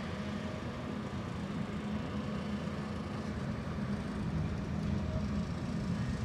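Rail-yard diesel engine idling steadily, a low even hum.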